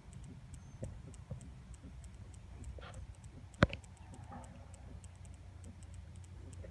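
Quiet outdoor ambience with a rapid, regular, faint high ticking, and one sharp click a little past halfway.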